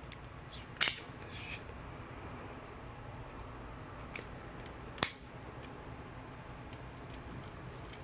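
Two short, sharp clicks about four seconds apart, from small repair tools or phone parts being handled on the work surface, over a low steady hum.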